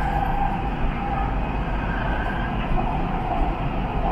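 Siemens Inspiro metro train running: a steady rumble of wheels on the rails with a higher whine that fades about halfway through and comes back stronger near the end.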